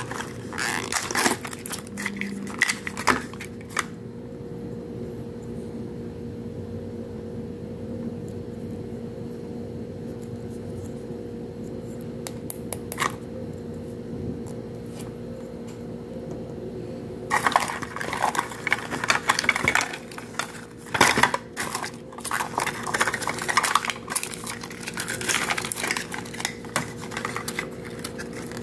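A plastic Mini Brands capsule and its paper-lined segments being handled and peeled open: crinkling and small plastic clicks and taps. The handling is busy for the first few seconds, thins to a few sparse clicks over a steady low hum, and turns busy again about two-thirds of the way through.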